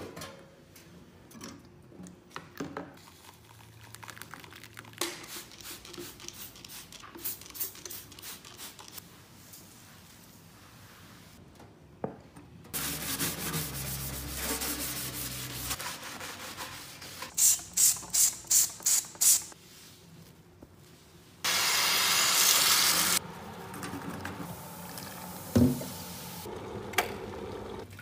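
Cleaning a stainless steel kitchen sink. Light clicks and rattles of a wire sink rack being handled come first, then a stretch of hissing with six quick spray-bottle squirts in a row. A louder steady hiss lasting under two seconds follows, and a single knock comes near the end.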